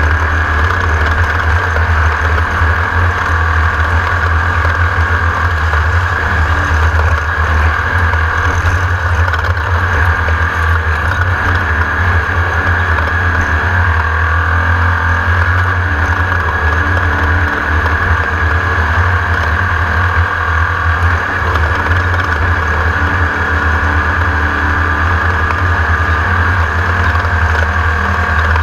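Class 1600 off-road race car's engine running hard at a steady pace, a loud, unbroken drone with a heavy low rumble.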